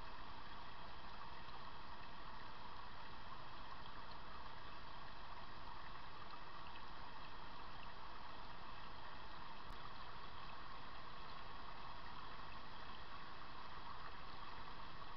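Shallow stream running steadily over stones, a constant even rush of water with no change in level.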